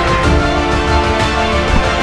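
Background music with a steady beat of about two strikes a second under held notes.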